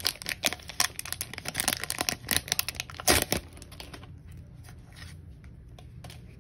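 Foil wrapper of a Pokémon card booster pack crinkling and tearing as it is ripped open and the cards pulled out, a quick run of sharp crackles that stops about three and a half seconds in. After that only faint ticks of the cards being handled.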